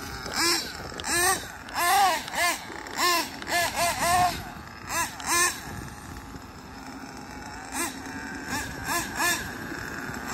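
Nitro engine of a Kyosho Inferno NEO ST 3.0 RC truggy revving in quick throttle blips, each a short rising-then-falling whine, about two a second. It goes quieter and steadier for a couple of seconds in the middle, then blips again near the end.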